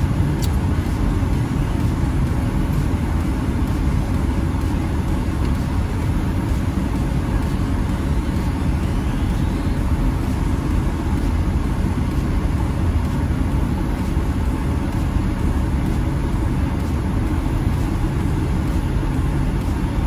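Steady rumble of a car's engine and tyres heard from inside the cabin while driving on a snow-covered road.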